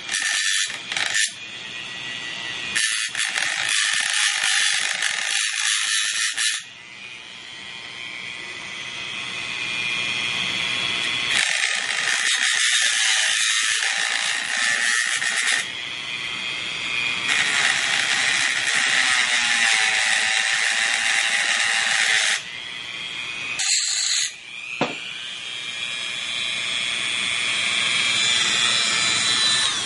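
Dremel rotary tool with an EZ Lock metal cut-off wheel cutting the weld of an AK muzzle nut: a steady high motor whine, broken by about five spells of loud grinding, each a second to five seconds long, as the wheel is pressed into the steel. Between them the tool whines freely, and near the end the whine rises in pitch.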